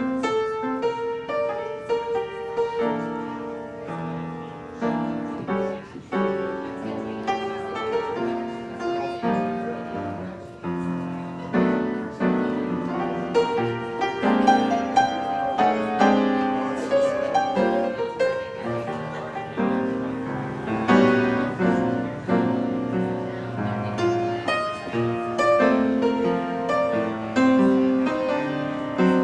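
Upright piano played solo, with chords in the left hand under a running melody and notes struck one after another without pause.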